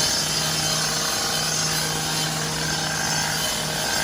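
A machine running steadily: a constant low hum under a broad even hiss.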